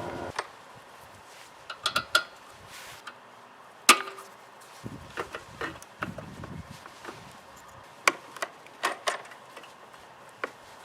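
A steady mechanical hum cuts off about half a second in, followed by scattered sharp knocks and clicks of hard objects being handled, with a few louder knocks around two, four and eight to nine seconds in.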